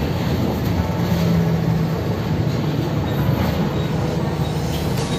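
Steady low rumble of a moving bus, heard from inside: engine and road noise with a low hum.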